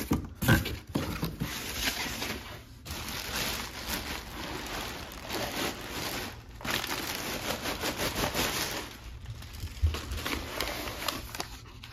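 Continuous crinkling and rustling of a clear plastic bag being handled and pulled open around a folded inflatable's fabric, with a few brief pauses.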